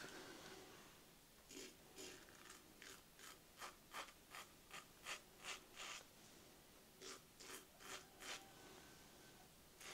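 King C Gillette double-edge safety razor scraping through beard stubble in short, faint strokes during a with-the-grain pass: about a dozen in quick succession, a pause of about a second, then about five more.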